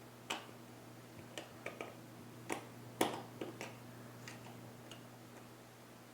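Scattered small clicks and taps of a small Phillips screwdriver and the controller's plastic parts as a screw is worked out of an Xbox 360 controller's D-pad housing, the loudest about three seconds in.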